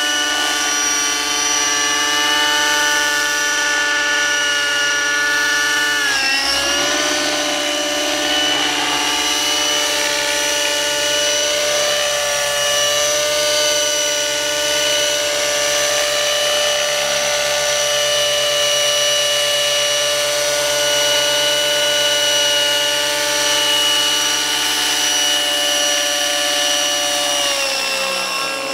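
Radio-controlled model helicopter flying overhead, its engine and rotors giving a steady, high whine of several tones. The pitch dips briefly about six seconds in, wavers up and down as it manoeuvres, and falls away near the end.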